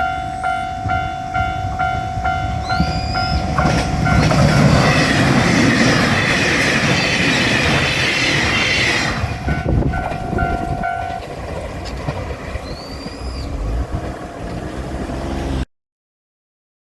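Japanese level-crossing bell ringing in quick even strokes, about three a second, as a diesel train passes close by, loud from about four seconds in. The bell is heard again once the train has gone and stops a few seconds later.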